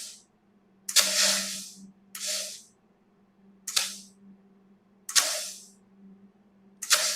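Plasma cutter torch set to 45 amps fired in five short bursts, each a sharp crack followed by a hiss of air and arc that dies away within about a second. A steady low hum runs underneath.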